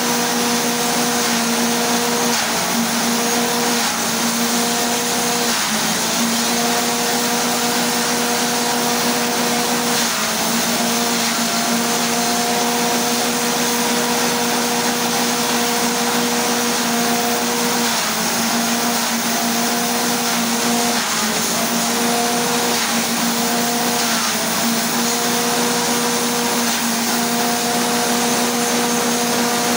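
M1800 forage chopper driven by a small petrol engine, running steadily at speed while corn and cassava stalks are fed through and chopped. Its hum dips briefly now and then as the stalks load the blades.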